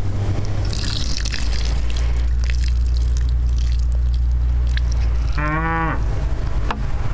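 A cow moos once, briefly, about five seconds in, over a steady low rumble.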